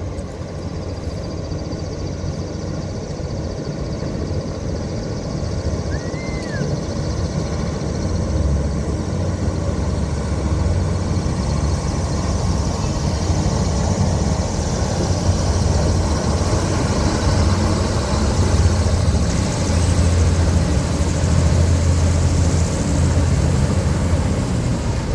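Griffon 12000TD passenger hovercraft approaching and running up onto its landing pad, the steady rumble of its engines, ducted propellers and lift fans growing louder as it nears.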